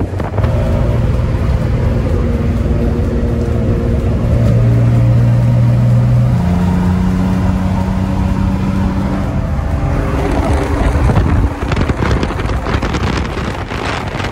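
Sports car engines running hard at highway speed, heard from a following car: a steady engine note that steps up in pitch about six seconds in. In the last few seconds a rougher, crackling exhaust sound comes in as the Maserati GranTurismo runs alongside.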